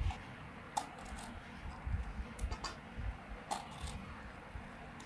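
A knife slicing small brinjals into thin rounds held in the hand, with a few short sharp clicks as the blade cuts through and slices drop onto a steel plate.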